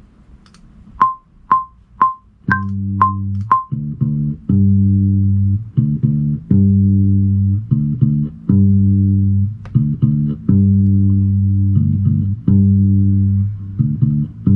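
Playback of a recorded electric bass guitar through the computer's speakers. Six metronome clicks come about two a second. Then held bass notes follow, one after another with short breaks between them.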